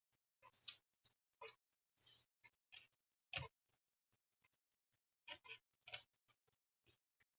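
Faint, irregular clicks and light taps from small tools and probes being handled on a repair bench, with near silence between them; one sharper knock about three and a half seconds in.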